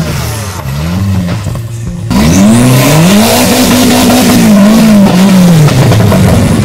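Off-road 4x4 buggy's engine revving hard, its pitch rising and falling again and again as the tyres spin in mud. It turns abruptly louder about two seconds in.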